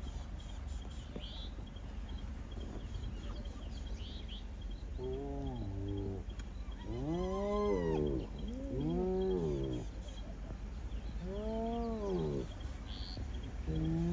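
A large animal calling: about five drawn-out calls, starting about five seconds in, each rising and then falling in pitch. A faint, fast high ticking and a few short chirps run underneath.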